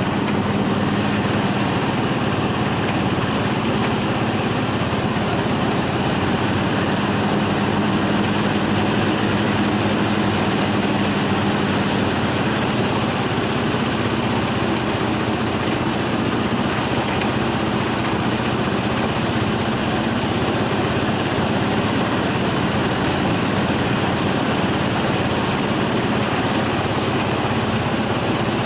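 Engine-driven rice thresher running steadily, its engine holding a constant speed.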